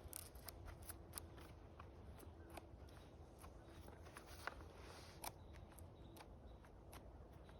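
Near silence: faint scattered clicks and ticks over a low background rumble.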